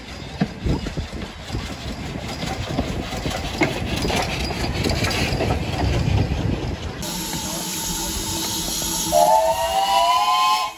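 BR Standard Class 2MT steam locomotive running past, with steam and rail clatter and scattered knocks. Then, from aboard the train, a steady steam hiss, and near the end a steam whistle sounding with several tones rising slightly together, cut off abruptly.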